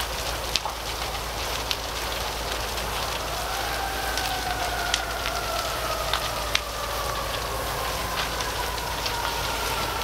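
Fire in a fully involved wooden barn, crackling with many sharp pops over a steady rushing noise. From about three and a half seconds in, a siren rises briefly and then slowly falls in pitch.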